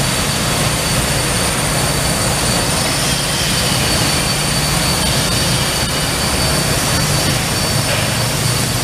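LS Industries BSC-20 shot-blast cylinder cleaning machine running: a steady rushing noise with a low hum and a thin high whine, holding even throughout.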